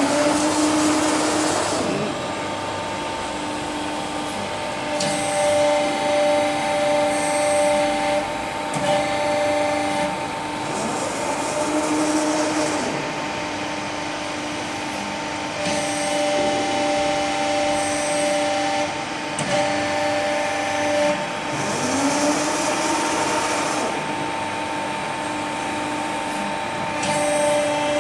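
Hydraulic power unit of a CNC press brake, an electric motor driving the pump, running with a steady hum made of several held tones. Louder stretches of hiss come and go every few seconds.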